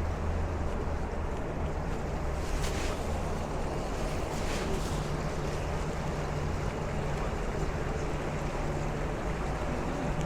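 Steady rushing and splashing of water from an ornamental fountain water feature, over a low steady hum.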